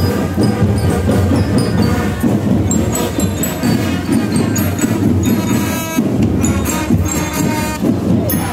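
Marching band playing a tune, with drums and the short, bright high notes of bell lyres over it.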